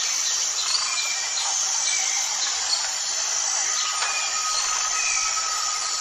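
Forest ambience: a dense, steady drone of insects with scattered short bird chirps over it, and a long steady high note joining about four seconds in.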